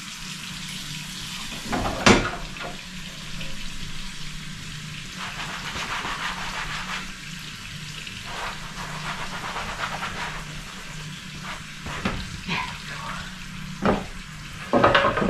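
Tap water running steadily into a kitchen sink during hand dishwashing, with a few sharp clinks and knocks of dishes against each other or the sink.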